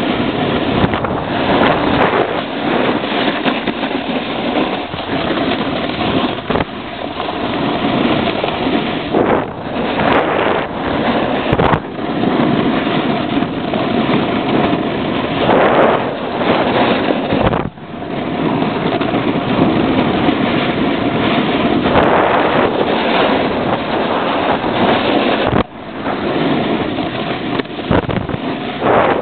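Snowboard riding and carving down a ski run: a loud, continuous scraping rush of the board on snow, mixed with wind on the microphone. It is noisy from warm-weather snow, and it cuts out briefly twice.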